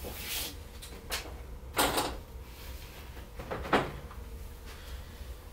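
Handling noises: a few short scrapes and knocks, the loudest about two seconds in and another just before four seconds.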